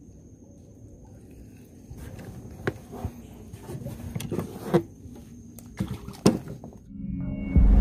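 Scattered knocks and taps against the boat's deck and hull, about six over a few seconds, over a low steady background rumble. Just before the end a loud rumbling music intro cuts in.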